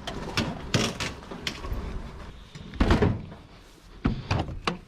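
Knocks and clunks of heavy items being shifted and loaded, with one heavy thump about three seconds in.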